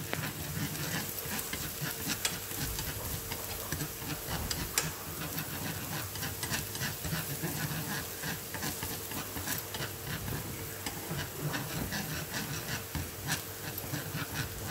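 Minced lemongrass and chili sizzling in annatto oil in a nonstick frying pan, stirred with a wooden spatula that scrapes and taps against the pan many times.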